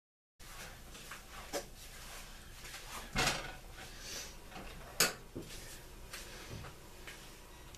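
Cookware and utensils handled on an electric coil stove: a few knocks and clinks of spatula, pan and lid, the loudest about three seconds in and a sharp clink about five seconds in.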